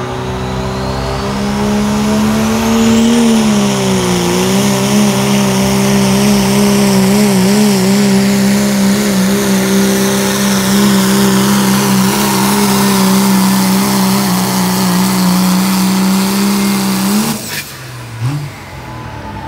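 Diesel pickup truck's engine at full throttle pulling a weight-transfer sled, a high whine climbing over the first couple of seconds. The engine note dips briefly about four seconds in, holds steady, then cuts off suddenly near the end as the pull ends.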